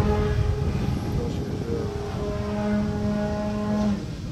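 Radio-controlled model aerobatic airplane flying overhead, its engine and propeller making a steady droning tone. The drone weakens for about a second in the middle, comes back, and drops off near the end.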